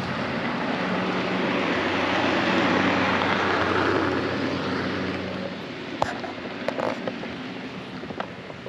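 Model train running on the layout: a steady rumble with a low hum that swells over the first few seconds and then fades, followed by a few light clicks.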